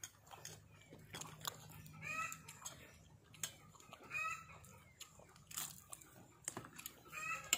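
A hen cackling, a short pitched call repeated about every two seconds: the cackle of a hen that has just laid an egg. Small clicks of people eating by hand come between the calls.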